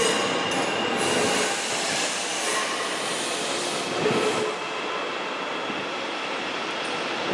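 MTR South Island Line S-train, an electric multiple unit, running away along the track: a steady rumble of wheels and rails with whining tones on top. A brief louder swell comes about four seconds in, and after it the sound settles into a slightly quieter, even run.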